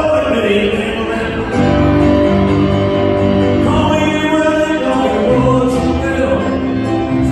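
Music with a singing voice. A fuller band with bass comes in about a second and a half in.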